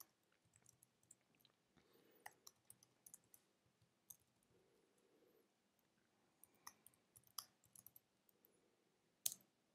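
Faint, scattered clicks of a computer keyboard being typed on, with a slightly louder double click near the end.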